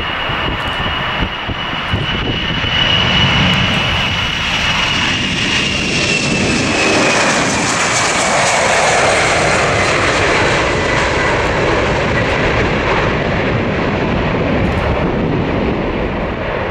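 Ilyushin Il-76-90VD's four PS-90A turbofan engines at takeoff power as the freighter lifts off and climbs away: loud, steady jet noise with a high whine that slowly drops in pitch from about six seconds in.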